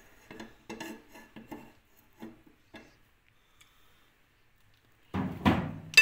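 Light clinks and taps of a small metal spoon against dishes and containers while baking powder is measured out, fading into quiet after about three seconds. A short loud noise comes near the end.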